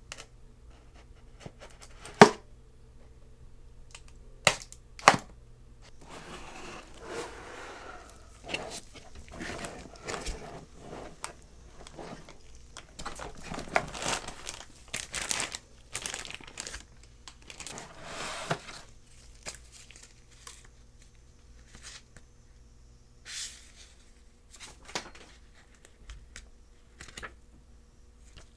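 Keyboard packaging being unpacked by hand: three sharp clicks or taps in the first five seconds, then a long stretch of rustling, crinkling and tearing of the wrapping, then a few softer handling clicks near the end.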